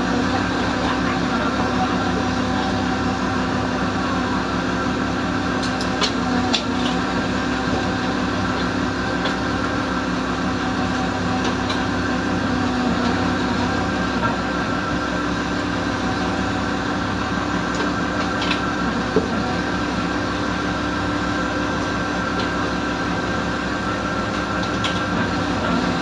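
Steady mechanical drone of a fishing boat's engine and deck rope hauler running while crab traps are hauled, with a few sharp clicks and knocks now and then.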